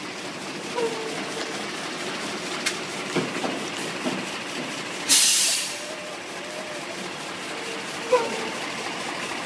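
Diesel engine of a MAN military truck running close by, with a loud burst of air hiss about five seconds in, typical of a truck's air brakes venting. A couple of short squeaks and clicks come from the truck.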